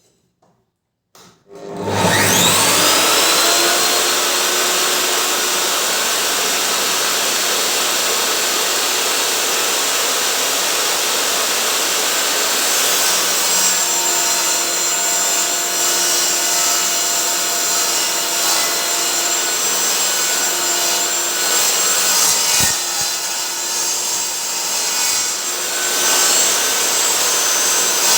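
Homemade workbench table saw switched on about a second and a half in, its blade spinning up with a rising whine, then running steadily while sawing wood, with a single knock a little past the middle.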